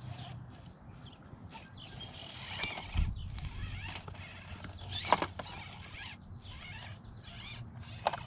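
Axial SCX24 Bronco micro crawler clambering over rocks: its tyres and hard body knock, clack and scrape irregularly on the stone. Several knocks, one dull thump about three seconds in and the loudest sharp clack about five seconds in.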